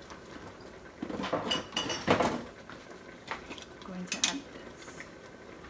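Kitchen clatter of dishes and utensils being handled: a run of clinks and knocks from about a second in, the loudest about two seconds in, and another sharp clink about four seconds in.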